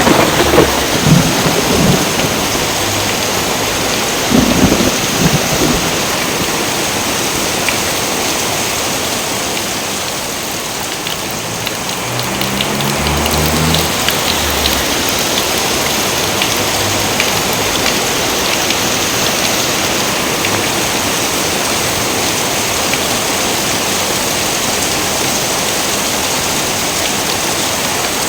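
Steady rain falling, with thunder rumbling in the first few seconds and again about halfway through.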